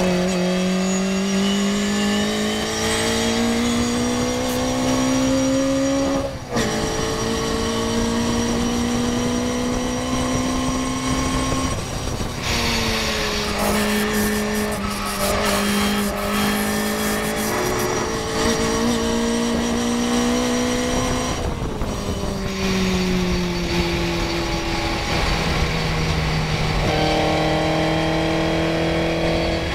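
In-car sound of a Morgan racing car's small engine under load at speed. Its pitch climbs, breaks and drops about six seconds in, climbs again to about twelve seconds, then sits lower and slowly falls, with further drops later on, over steady wind rush.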